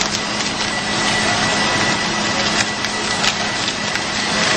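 Steady background hiss with a faint high whine and a low hum, with a few light clicks and crackles.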